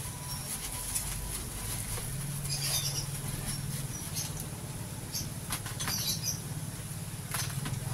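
Plastic wrapping on a courier parcel crinkling and rustling in short scattered crackles as it is handled. A steady low hum runs underneath.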